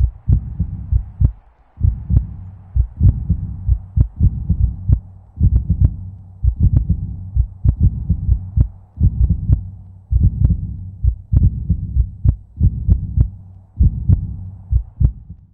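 Loud, repeated low thumps coming in irregular clusters, several a second, with short pauses every few seconds.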